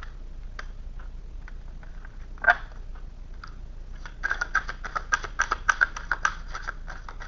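Tarot cards being shuffled by hand: a few light card clicks, one brief louder snap about halfway through, then a fast, continuous patter of cards slapping together from about four seconds in.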